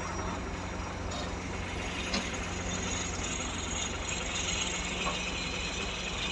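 Excavator's diesel engine running steadily with a constant low hum, and a few faint knocks.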